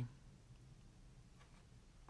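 Near silence: faint room tone with a low hum and a single faint tick.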